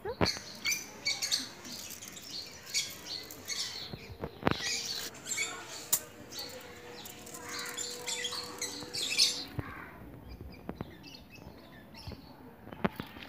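Aluminium foil crinkling and rustling under hands, with a few sharp clicks, and birds chirping in the background.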